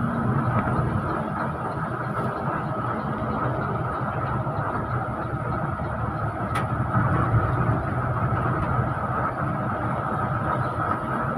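Express bus under way: steady engine and road noise, a low rumble with hiss. A single sharp tick comes about six and a half seconds in.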